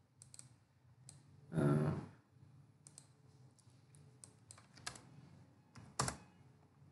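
Computer keyboard and mouse clicks: a dozen or so scattered sharp taps as a number is typed into a field, the loudest about six seconds in. A short wordless vocal sound comes about one and a half seconds in, over a faint steady low hum.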